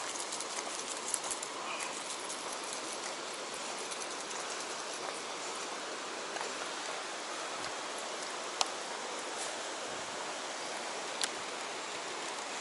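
Steady rush of a flowing river current, with two brief sharp ticks about two-thirds of the way through and near the end.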